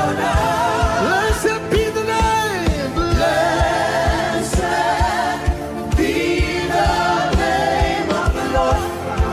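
Live gospel worship: a choir and congregation singing with a band, over a steady bass line and a regular kick-drum beat.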